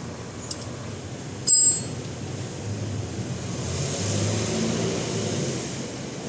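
A sharp metallic clank with a brief high ringing, like a steel tool or part striking metal, about a second and a half in. A low rumble then swells and fades over the following few seconds.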